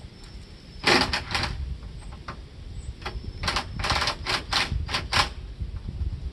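Ratchet wrench clicking in quick runs while loosening bolts on a tractor snow cab's roof supports: a short run about a second in, then a longer run of about seven clicks in the middle.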